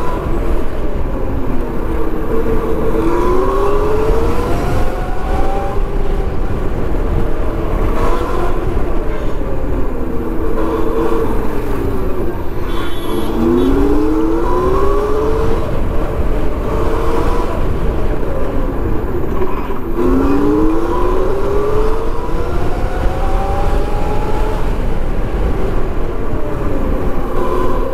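Yatri P1 electric motorcycle's motor whining, its pitch sweeping up three times as it accelerates and sinking as it eases off, over a steady low rumble of wind on the microphone.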